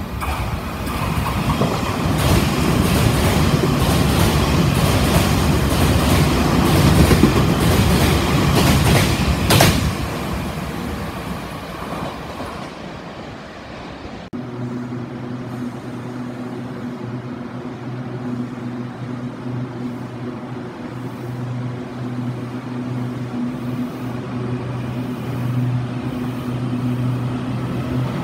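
A train passing through an underground station at speed: a loud echoing rush with rapid clicking of wheels over the rails for about ten seconds, then fading. After an abrupt change about halfway through, a steady low hum with two steady tones as an electric commuter train runs along the platform.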